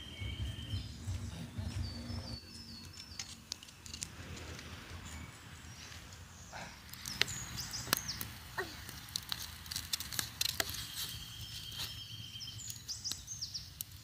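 Wood fire crackling with scattered sharp pops under corn cobs roasting in their husks, the pops thickest in the second half, with birds calling in the background.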